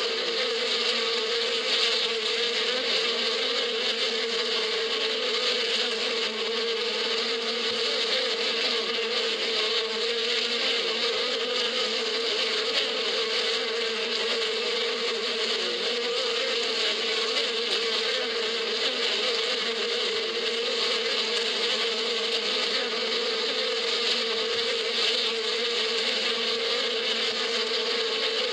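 Many honeybees buzzing around their hive: a steady, unbroken hum on one low pitch with a hiss above it.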